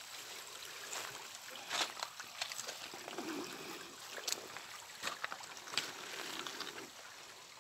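Running water of a river flowing over stones, a steady hiss, with a few sharp clicks scattered through it.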